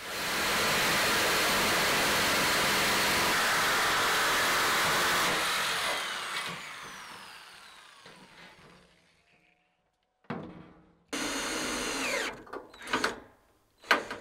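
An electric power tool runs at a steady high level for about five seconds, then coasts down and fades over the next few seconds. Near the end a cordless drill-driver runs briefly, slows, then gives several short bursts as it drives screws into a ribbed metal door.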